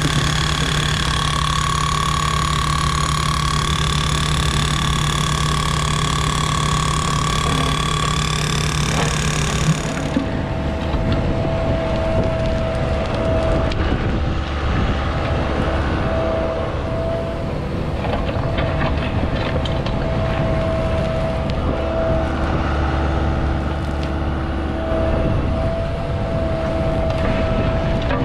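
Diesel engines of construction machinery running steadily with a whine, changing abruptly about ten seconds in to a different machine with a lower whine that breaks off now and then.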